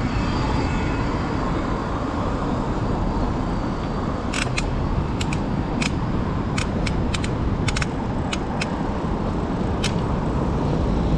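Steady rumble of wind and tyre noise on the microphone of a mountain bike riding along a street. From about four seconds in there are a dozen or so irregular sharp clicks and rattles.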